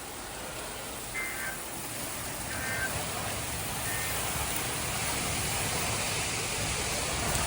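Heavy rain pouring down in a thunderstorm, a steady hiss that grows gradually louder. A few brief faint high chirps sound in the first half.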